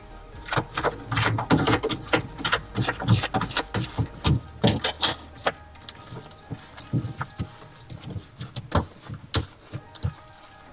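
Bathroom sink P-trap and drain fittings being handled and refitted, giving irregular clicks and knocks.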